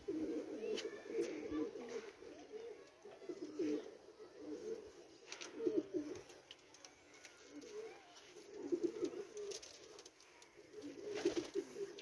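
Pigeons cooing in short low wavering bouts, repeated every couple of seconds.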